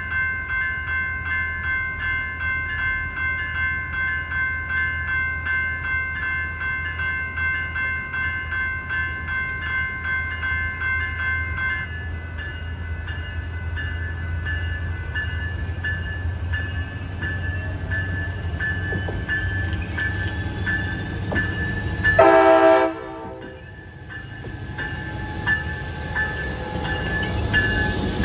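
Amtrak train led by two Siemens ALC-42 Charger diesel locomotives approaching with a low engine rumble and a bell ringing in quick repeated strokes; the higher ringing tones stop about twelve seconds in. About twenty-two seconds in the locomotive horn gives one short, loud blast. The rumble then grows as the locomotives pass close, with a faint high wheel squeal near the end.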